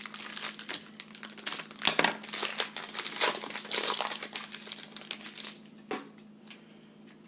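Trading card pack wrapper crinkling and crackling as it is handled and torn open, dense for about five and a half seconds, then quiet apart from one tick, over a faint steady hum.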